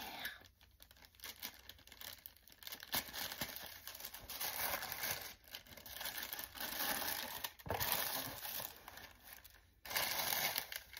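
Tissue paper crinkling and tearing as it is handled, in uneven bursts, while the seal is pulled loose and the wrapping sheets are opened out of a gift box.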